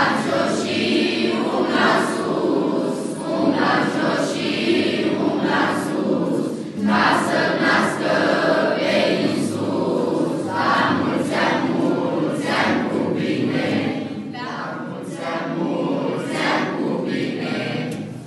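A choir of schoolchildren singing a song together, boys' and girls' voices mixed.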